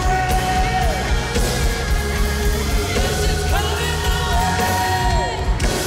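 Loud live church worship band music with held chords, and a voice holding two long notes that fall away at their ends.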